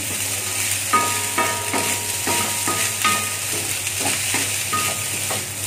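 Spatula scraping and turning fried rice in a thin steel wok over a steady sizzle, about two to three strokes a second, some strokes making the wok ring briefly.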